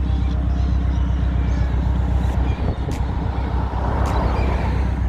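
Subaru Impreza running, heard from inside the cabin as a steady low drone, with a few faint clicks.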